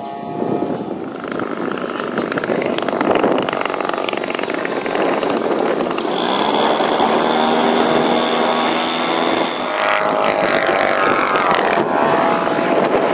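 Engines of giant-scale radio-controlled warbird model airplanes running at high power on takeoff and low passes. The engine note holds steady for a stretch, then shifts in pitch about ten seconds in as a plane passes.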